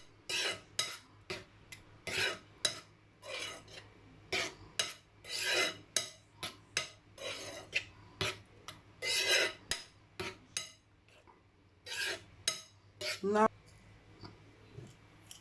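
A utensil stirring and scraping a thick oatmeal and pap conditioner mixture in a pot, in irregular strokes about one or two a second that stop about thirteen seconds in.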